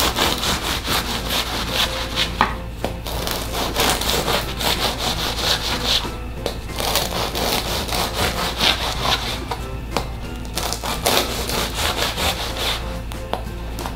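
Bread knife sawing back and forth through the crisp crust of a freshly baked baguette, rasping with each stroke. Several diagonal cuts follow one another, with short pauses between them.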